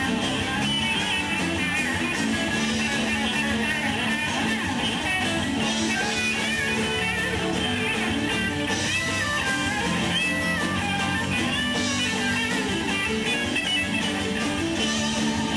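Live country-rock band playing an instrumental stretch without vocals: electric guitars with bass and drums, a fiddle among them, with a steady cymbal wash.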